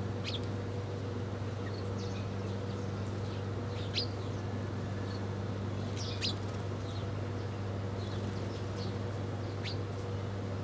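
Small birds chirping: short, high, downward-sweeping chirps scattered every second or two, with two louder ones near the middle. A steady low hum runs underneath.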